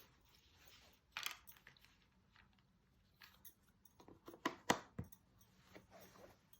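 Jigsaw puzzle pieces being handled and set down: quiet, scattered clicks and taps, with one about a second in and a tighter cluster of three or four about four and a half to five seconds in.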